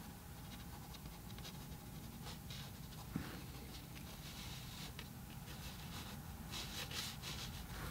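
Faint scratching of a graphite pencil on watercolor paper in short, light sketching strokes, busier near the end.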